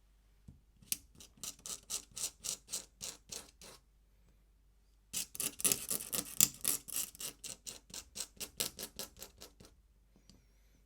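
Pen scratching across paper in quick, even back-and-forth strokes, about five a second, as if hatching ink lines. Two runs: a shorter one, then after a pause of a second or so a longer, louder one.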